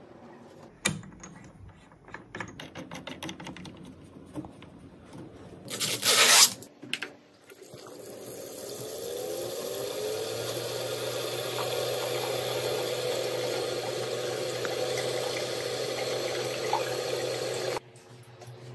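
Coolant being squeezed from a plastic bottle into the reservoir of a custom PC water-cooling loop: liquid running steadily for about ten seconds, its pitch rising at first as the reservoir fills, over a low hum. Before it come scattered clicks and taps of hardware being fitted and a brief loud rush; the pouring cuts off suddenly near the end.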